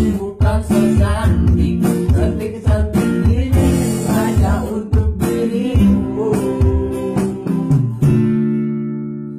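Acoustic guitar strummed along with drums played on an Android tablet drum app, with a voice singing. About eight seconds in the song ends on a final chord that rings and fades away.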